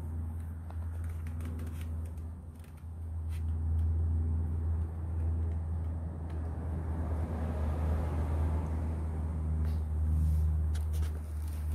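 An engine idling steadily, a deep even hum, with scattered light clicks and rustles over it.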